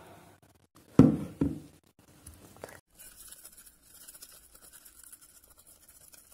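A brief loud call from a voice about a second in, then a plastic spoon faintly scraping and grinding through granulated sugar and honey in a plastic bowl as the lip scrub is stirred.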